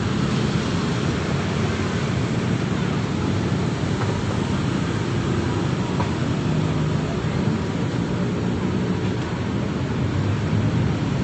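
Steady, loud low rumble with no clear rhythm or break, like a nearby engine or street traffic.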